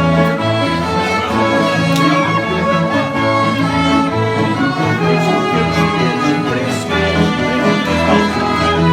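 Live dance-band music: sustained melody notes over a steady, moving bass line.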